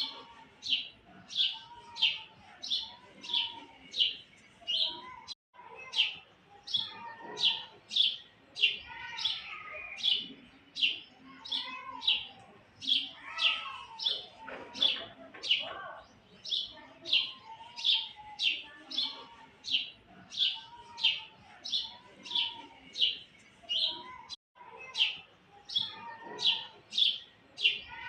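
A bird chirping over and over, short sharp high chirps at about two to three a second, with softer, lower warbling calls from other birds behind. The sound cuts out completely for an instant twice.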